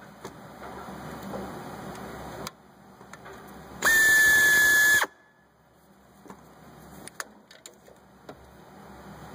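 A small power tool's motor whines at one steady high pitch for just over a second midway, starting and stopping abruptly, running out an alternator bolt that has already been broken loose. Light clicks and handling noise come before and after it.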